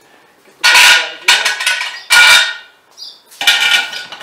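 Metal rod-holder bar and its bolt hardware clanking as they are handled and set on a plastic cooler lid: four loud clanks, each with a brief metallic ring.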